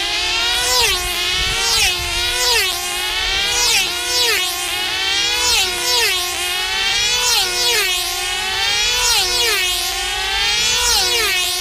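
Several F2C team-racing models' 2.5 cc diesel engines screaming round the control-line circle. Each pass is a high whine that drops in pitch as a plane sweeps by, repeating every second or so, with passes overlapping. A steady tone underneath stops about halfway through.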